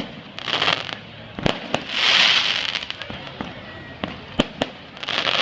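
Fireworks going off: sharp single bangs scattered through, and three swelling bursts of dense crackling, the loudest about two seconds in.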